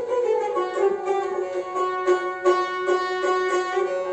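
String-instrument music: a melody of quick plucked notes over held sustained tones, an instrumental break between sung verses of a lament lullaby.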